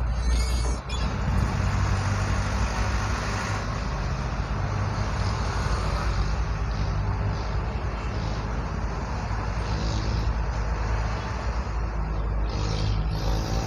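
Delivery truck's engine running steadily as it drives, with road and traffic noise.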